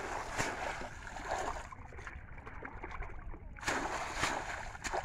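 Water splashing and sloshing as a bamboo shrimp trap is swished back and forth through shallow river water. The splashing comes in two bouts, the second starting about three and a half seconds in.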